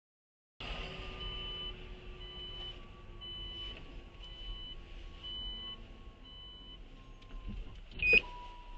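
A car's electronic warning chime inside the cabin: six evenly spaced high beeps, about one a second, over a faint steady hum. A sharp click comes near the end, the loudest sound.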